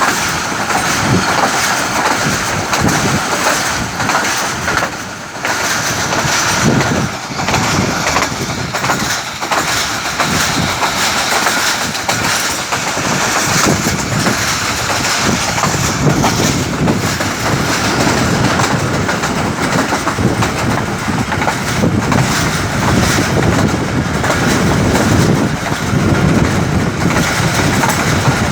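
Pakistan Railways Rahman Baba Express passenger train running at speed: a steady rumble of wheels on track with irregular clacks.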